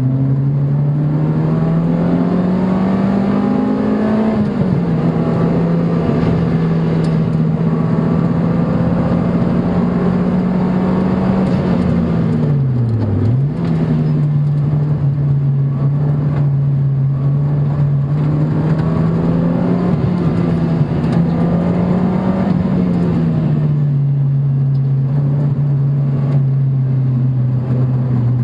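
A sports car's engine pulling on a track lap, heard from inside the car. The engine note climbs for the first few seconds and drops about four seconds in. It then holds fairly steady, dips sharply and recovers about halfway through, and rises again before falling back near the end.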